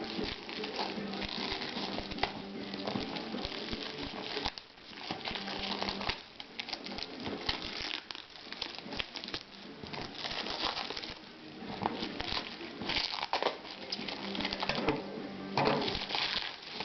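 Packaging rustling and crinkling as it is handled, with irregular clicks and knocks throughout.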